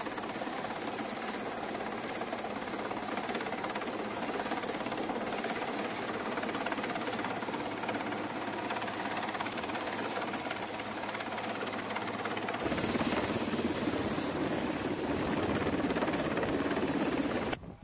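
Helicopter hovering nearby, a steady rush of rotor and engine noise that grows louder about thirteen seconds in as it comes close overhead.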